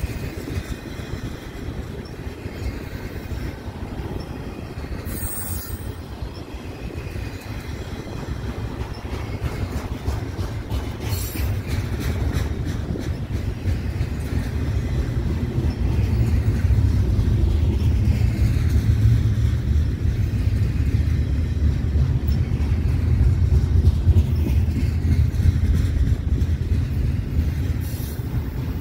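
Double-stack intermodal freight cars rolling past: a steady rumble of steel wheels on rail, growing louder about halfway through.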